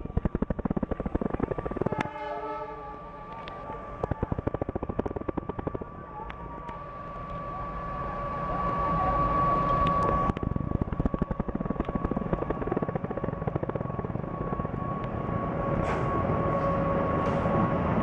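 An Indian Railways WDM-class diesel locomotive approaches and passes close by, its engine and running gear growing louder through the first half and staying loud. A long, steady high-pitched tone rides over it.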